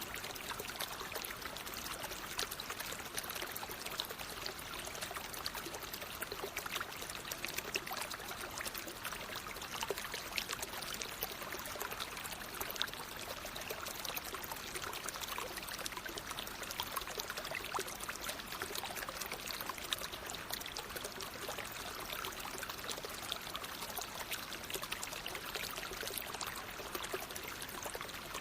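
A stream of water flowing steadily over stones, a constant rushing hiss dotted with many small splashes and bubbles.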